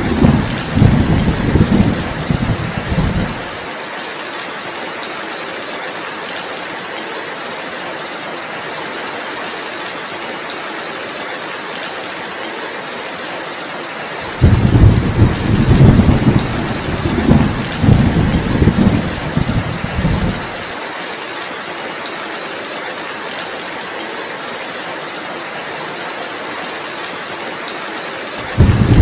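Steady heavy rainfall hissing throughout, with rolling thunder rumbling low and uneven for the first few seconds, again for about six seconds midway, and once more near the end.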